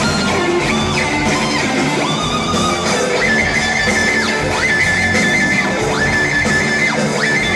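Live heavy rock band playing through a concert PA. A distorted electric guitar plays high held notes that slide up and down in pitch over the full band.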